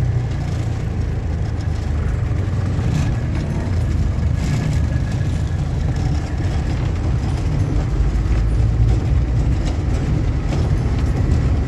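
Cab noise of the Mercedes-Benz MB180 diesel motorhome on the move: a loud, steady engine and road rumble with scattered knocks and rattles.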